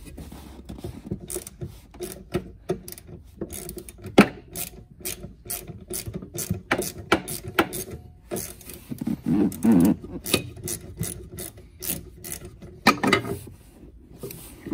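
Ratcheting wrench clicking in short runs, with pauses between them, as a rusty 13 mm nut is worked off a golf cart solenoid's top terminal post.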